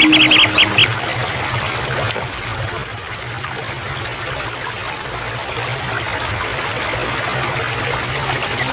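Small stream running and trickling steadily, with a few quick bird chirps in the first second.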